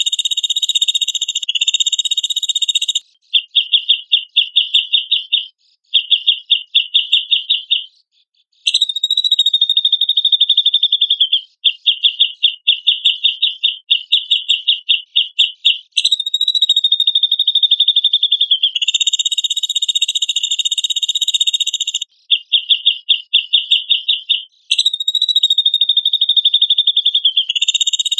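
Cucak jenggot (grey-cheeked bulbul) call played as a looped training recording. It is a high buzzy call held at one pitch, alternating between long held buzzes of a second or two and rapid stuttering runs of about six pulses a second, with brief gaps between phrases.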